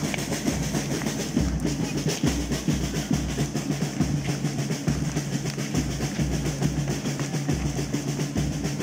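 Festival drums playing a fast, continuous roll, with a bass drum beating regularly underneath.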